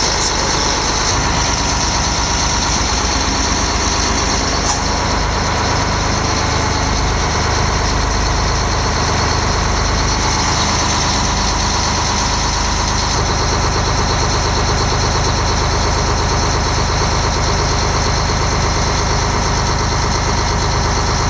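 Fire truck's engine running steadily with its fire pump engaged, with a steady high-pitched tone above it.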